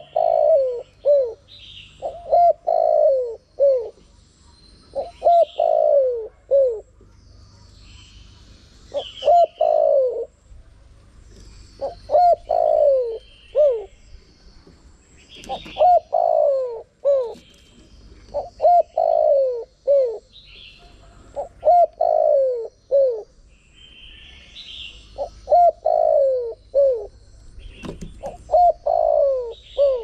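Spotted dove cooing: repeated short phrases of three or four falling coo notes, a new phrase every two to three seconds. Fainter high chirps sound between the phrases.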